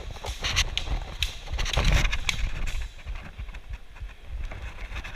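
Hurried footsteps on a raised wooden plank walkway: an uneven run of knocks on hollow boards, busiest in the first few seconds.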